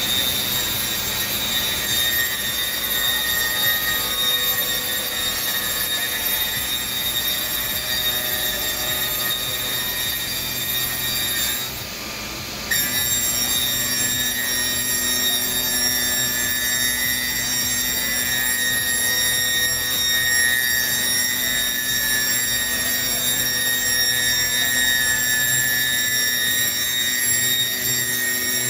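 CNC boring machine running with a steady, high-pitched whine made of several tones at once. The whine cuts out for about a second midway, then comes back.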